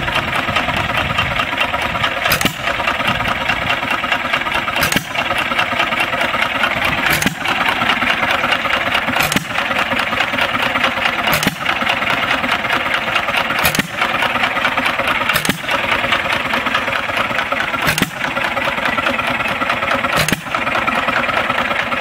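John Deere Model E 1½ hp single-cylinder hit-and-miss engine running with no belt on its flywheel pulley. It fires with a sharp bang about every two seconds and coasts on its flywheels between firings, with a steady mechanical running noise throughout.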